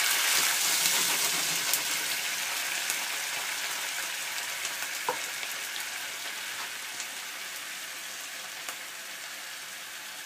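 White wine sizzling and bubbling hard in a hot frying pan as it deglazes it, loudest at the start and slowly dying down, with a few small pops.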